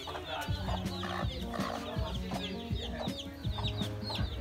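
A brood of young chicks peeping, a rapid, continuous run of short high chirps, with a hen clucking among them.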